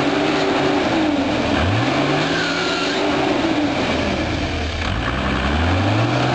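Off-road 4x4's engine revving under load, its pitch climbing twice, holding, and falling back between, over a steady noisy rush.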